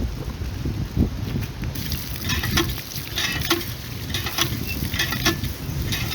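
Food sizzling in a cooking pot while a spoon stirs and scrapes it in repeated strokes. A low rumble fills the first two seconds.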